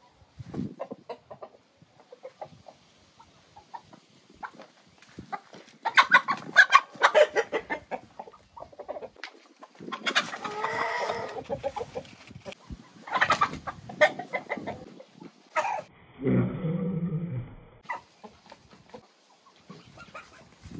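A flock of domestic chickens clucking and calling, with a rooster crowing once about halfway through.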